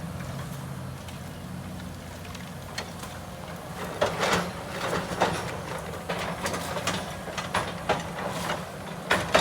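Heavy diesel engine of a CAT excavator running steadily, with irregular knocks and clanks from about four seconds in.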